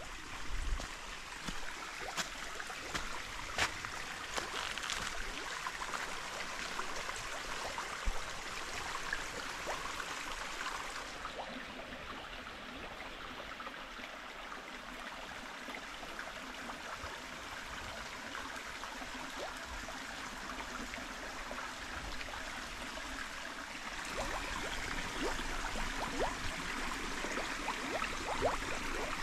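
Steady rush of water with scattered light clicks. The high hiss thins out about eleven seconds in and fills back in, a little louder, near the end.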